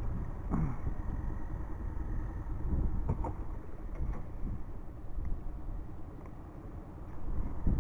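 Steady low rumble with a few short splashes and knocks as a smallmouth bass is held and moved in the water at the boat's side.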